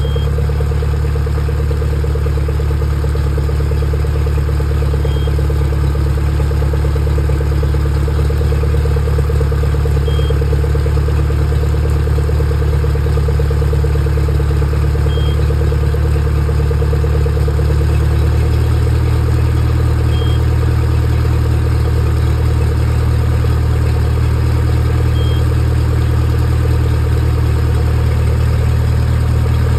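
Suzuki DF140 four-stroke outboard idling steadily with its cowling off, warming up on flush muffs. A little past halfway through, the engine note shifts slightly.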